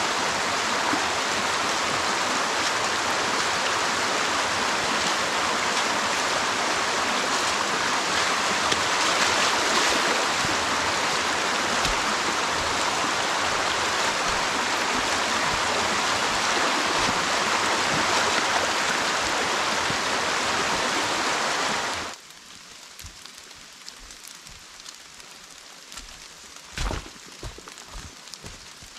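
A rain-swollen bush stream running high, a loud steady rush of water. About two-thirds of the way through it cuts off suddenly, leaving quieter rain falling, with a soft thump near the end.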